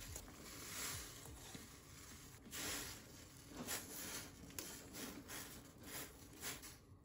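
Soft, irregular swishing and squishing of food being handled in the kitchen.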